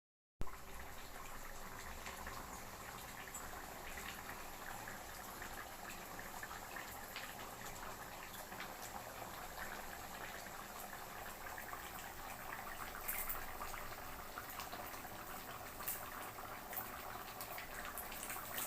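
Chicken kulambu bubbling as it simmers in a pot: a steady fizzing with many small pops, a few louder ones in the second half.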